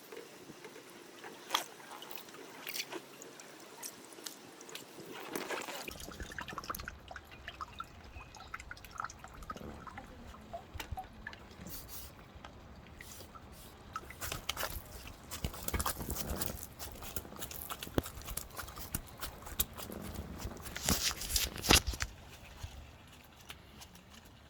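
Water dripping and splashing in irregular bursts, mixed with scattered sharp clicks and knocks.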